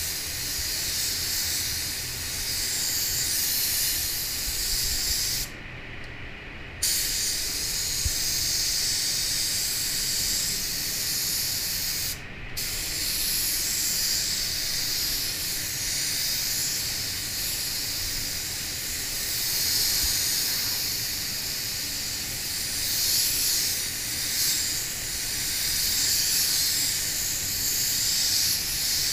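Gravity-feed spray gun spraying paint, a steady high hiss of compressed air and atomised paint. The hiss stops for about a second some five seconds in, and again briefly about twelve seconds in, as the trigger is let off between passes.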